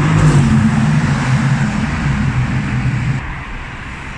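Car engine running loudly at steady revs, its pitch stepping up slightly about half a second in. It cuts off abruptly about three seconds in, leaving quieter street noise.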